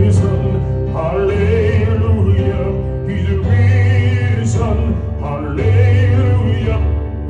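Gospel song: a male voice sings long held notes with vibrato over a band, in phrases that begin about every two seconds.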